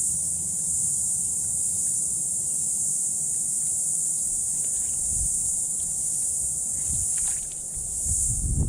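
Steady high-pitched drone of insects. A few dull low knocks come about five seconds in and again near the end.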